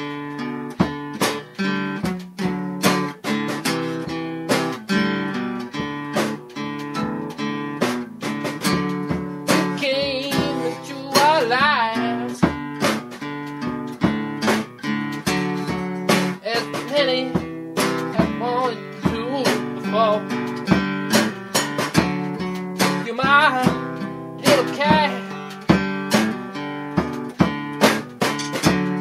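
A song: steadily strummed acoustic guitar with a voice singing over it at times.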